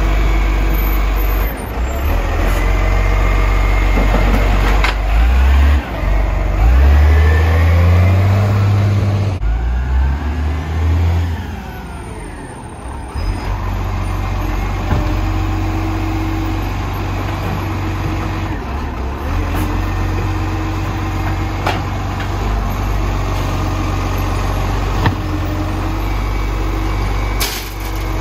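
Garbage truck's engine running, its revs rising for a few seconds about a quarter of the way in, then dropping back and settling to a steady run.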